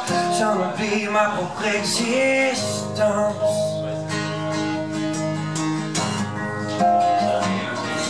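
Two acoustic guitars playing a song live, with a male voice singing long held notes over the strumming.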